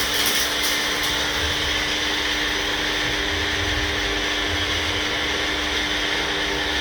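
A small motorised appliance running steadily, a loud even hiss over a low steady hum.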